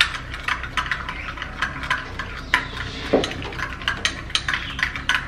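Metal spoon stirring a thick potato-puree mixture in a small glass bowl, clinking and scraping against the glass in quick, irregular ticks. One lower, duller sound about three seconds in.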